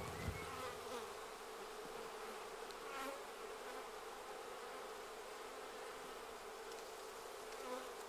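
Honey bees buzzing: a faint, steady hum.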